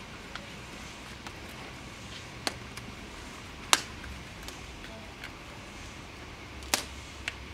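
Banana leaf being folded over a cooking pot and tied down with string: a few sharp clicks and crackles, the loudest about halfway through and another near the end, over a steady low background noise.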